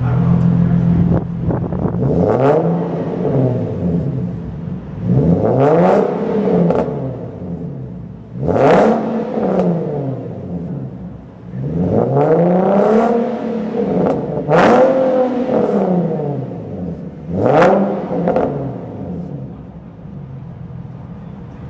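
Modified Nissan 370Z's 3.7-litre V6, breathing through high-flow cats and an aftermarket axle-back exhaust, revved in place about six times. Each blip rises and falls back to idle, in a parking garage.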